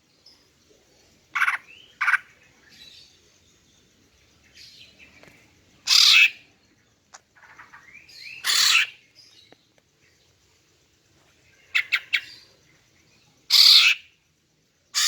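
Female cucak ijo (green leafbird) calling: short, loud, high calls every few seconds, with a quick run of three or four near the end and fainter chirps in between. It is played as a lure to make males answer and sing.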